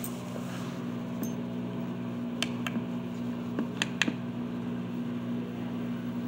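Steady low electrical hum made of several evenly held low tones, from a CRT television rigged as an oscilloscope with a transistor push-pull amplifier driving its vertical coil. A few soft clicks come about one, two and a half, and four seconds in.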